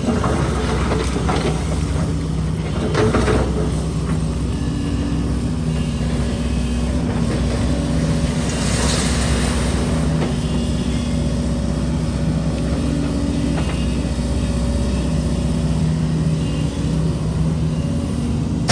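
Heavy diesel construction machinery, an excavator and dump trucks, running steadily with the engine pitch rising and falling. There are a few knocks in the first few seconds and a short hiss about nine seconds in.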